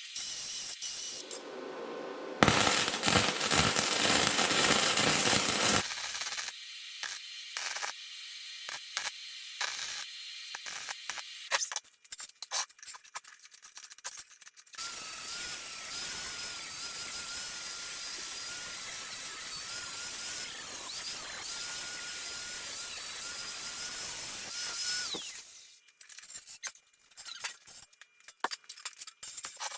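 Welding on a steel frame: the arc crackles and sizzles in bursts, with a loud stretch a few seconds in and a steady hissing run of about ten seconds from about fifteen seconds in.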